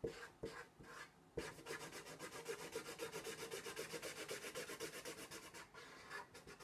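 Red felt-tip marker scribbling on paper to fill in a shape: a few separate strokes, then a fast, even back-and-forth rubbing at about six or seven strokes a second, easing off near the end.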